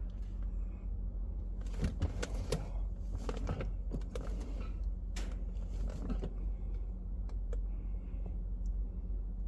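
A few seconds of clicks and rattles, as of something being handled, over a steady low hum. The clicks bunch together in the middle of the stretch.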